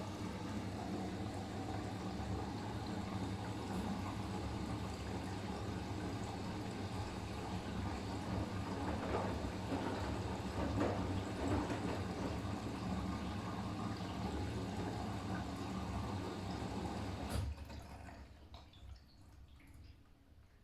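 Siemens iQ500 washing machine taking in water: a steady rush of water with a low hum under it, cutting off abruptly with a brief trickle near the end.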